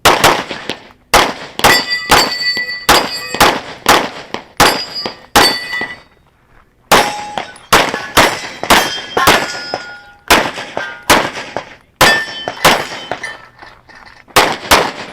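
Rapid strings of shots from a compensated open-class pistol (a Phoenix Trinity Honcho), each hit followed by the ringing clang of a steel target. There are three strings with short pauses about six seconds in and near the end.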